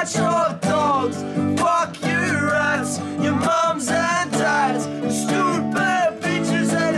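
Background music: a song with a vocal line over guitar.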